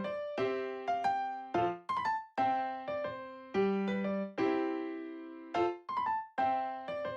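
Background piano music: struck chords and notes in an even, repeating rhythm, each fading before the next is played.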